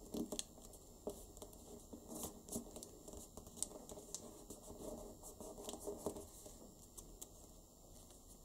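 Faint, irregular rustling, scratching and soft clicks of origami paper being folded and creased by hand, as fingers press and slide along the folds.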